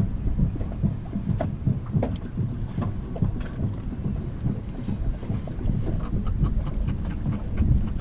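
Wind buffeting the microphone, a gusty low rumble, with a few faint clicks.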